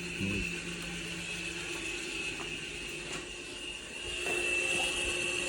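Audi A5 rear electric parking brake caliper motors running steadily with a high whine, winding the pistons back into service position so the pads can be changed. It gets louder near the end, then stops abruptly as the retraction finishes.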